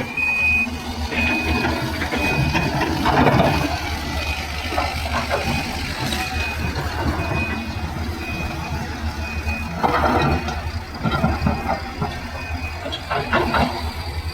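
Reversing alarm of a heavy mining vehicle beeping steadily at one pitch, about one and a half beeps a second, over a diesel engine running. Louder rumbling and clanking comes in a few times, about three and ten seconds in.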